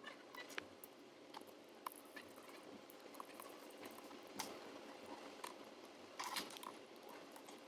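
Light, irregular clicks and taps of small hand tools on a smartphone being repaired, over a faint steady hiss; a short cluster of taps comes about six seconds in.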